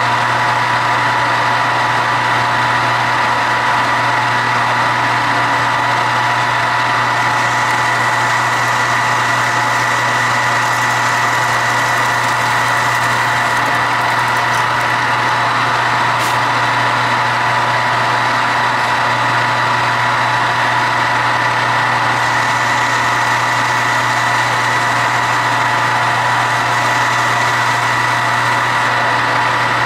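Metal lathe running steadily with a constant pitched hum, taking a roughing facing cut. There is one sharp click about sixteen seconds in.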